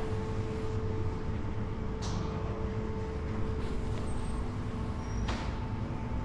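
Steady low rumble and hum of a station hall's room tone, with two short sharp knocks, about two seconds and five seconds in.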